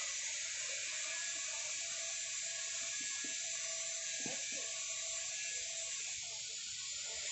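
Steady background hiss with a few faint, soft knocks about three to four and a half seconds in, from a multimeter probe being held and shifted against a battery terminal.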